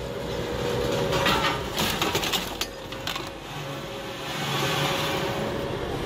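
Caterpillar tandem road roller's diesel engine running steadily as the roller creeps forward. A few clattering knocks between about one and three seconds in come as the drum pushes the motorcycle over.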